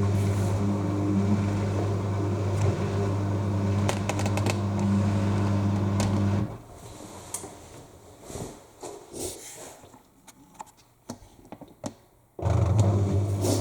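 AEG 7000 Series L7FE7461BI washing machine at the start of its Cottons 60 cycle: a steady low mechanical hum cuts out suddenly about halfway through. Only faint clicks are left, and the hum starts again abruptly near the end.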